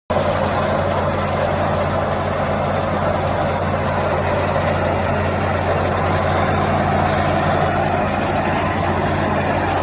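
Diesel engine of a Caterpillar backhoe loader carrying a stone-quarrying chain-saw arm, running steadily at an even pitch.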